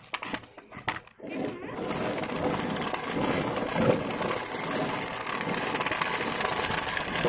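Small round fruits tumbling off a plastic toy dump truck's tipped bed and clattering onto concrete, then the toy truck's plastic wheels rolling over rough, gritty ground with a steady, dense rattle.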